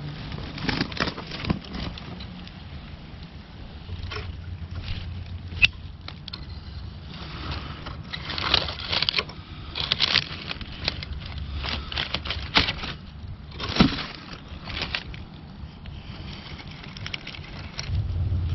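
Dry leaf litter and twigs crackling and rustling in short, irregular bursts as hands and a knife move through them around a yellow morel. A low rumble comes and goes underneath.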